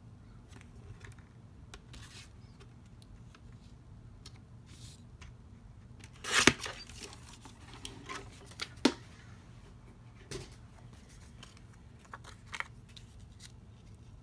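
Craft paper being handled and cut: soft rustles and small clicks, with a louder burst of paper rustling about six seconds in and a few sharp clicks after it.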